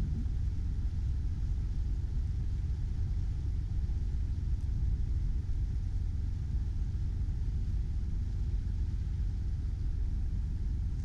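Steady low rumble with no distinct events, the kind made by wind on the microphone or engine vibration aboard a vessel.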